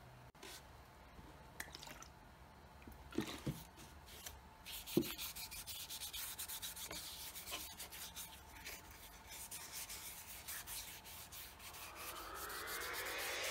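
A wooden saw handle being rubbed briskly by hand with an oily rag, a quiet rapid scrubbing of cloth on wood as boiled linseed oil is worked into the bare timber. A few light knocks come first, as the handle is handled on the bench.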